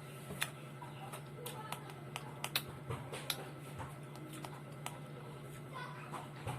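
Eating a fruit salad: irregular sharp clicks of a spoon against the container and of chewing, about one or two a second, over a steady low hum.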